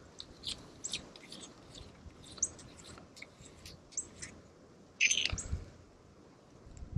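Small birds chirping, short high calls scattered throughout. About five seconds in, a brief louder rustle with a couple of dull knocks as the air rifle and its scope are handled.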